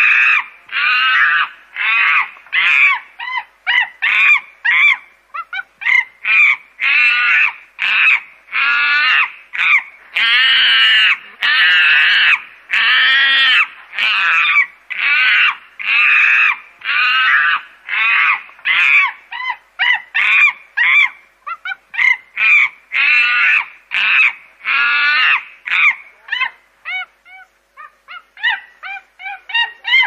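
Angry chimpanzees screaming in a long, loud run of harsh calls, one after another about every half second to second, turning to shorter, quieter rising-and-falling calls near the end.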